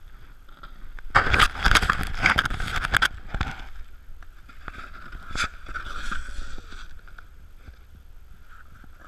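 Snowboard sliding and scraping over packed snow, loudest between about one and three and a half seconds in, then quieter with a few sharp knocks as the board slows.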